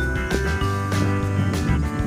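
Background music with a steady beat, guitar and sustained bass notes.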